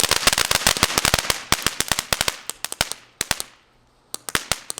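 A string of firecrackers going off: rapid, dense crackling pops that thin out about halfway through into scattered single bangs.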